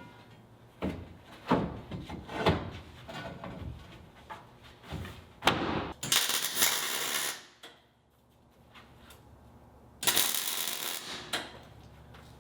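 Steel angle iron knocking and clanking as it is set in place, then two arc-welding tack welds, each a steady crackling hiss lasting a second or so.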